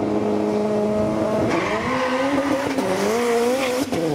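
Moskvitch drag car's engine held at steady revs on the start line, then launching about a second and a half in: the engine note climbs and wavers as the car accelerates away, with a brief break near the end.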